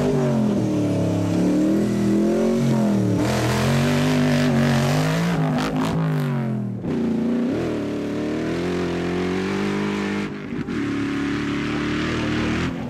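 Rally car engine revving hard, its pitch climbing and dropping again and again as it accelerates and lifts off. It dips briefly about seven seconds in and again around ten seconds, then holds a steadier note.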